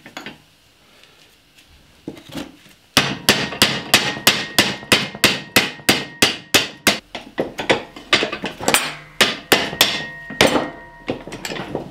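A hammer knocking a bolt out of the steel ball-joint pivot of a John Deere 2500 reel-mower cutting unit's suspension arm. After about three seconds of quiet, a quick, even run of sharp metal-on-metal blows follows, about three or four a second, with a faint metallic ring.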